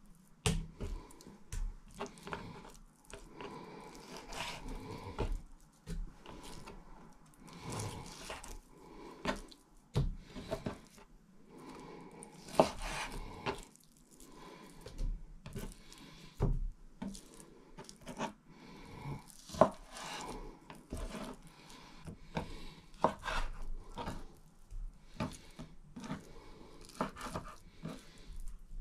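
Chef's knife cutting raw beef on a wooden chopping board: irregular knocks of the blade against the board, two of them sharper, about 13 and 20 seconds in.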